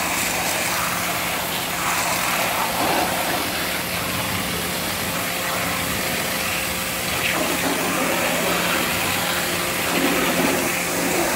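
Pressure washer running steadily, its jet of water hissing against vinyl siding, with a steady hum from the machine underneath.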